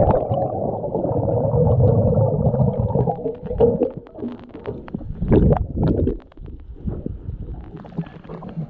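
Muffled underwater sound from a camera taken below the surface while swimming: a dense, low rushing of water and bubbles for the first few seconds. About four seconds in it gives way to quieter, uneven surges with scattered clicks and pops.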